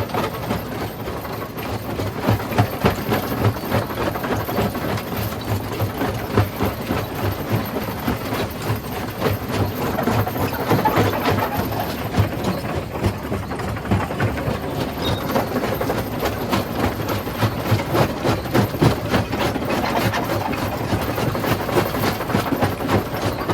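Heavy rock-crushing machinery running: a steady engine drone with continual, irregular knocking and clattering.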